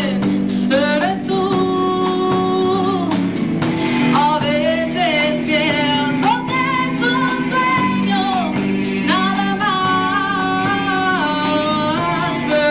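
Live rock band: a woman singing into a microphone over two electric guitars played through amplifiers and a drum kit.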